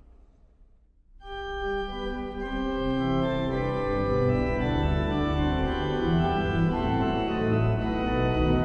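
Pipe organ playing slow, sustained chords. It comes in about a second in, and deeper bass notes join a couple of seconds later as the sound builds and then holds full.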